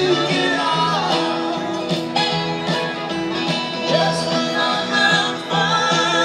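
A live string band plays with a singer, heard from far back in the audience at an outdoor concert. There are plucked strings and a steady beat.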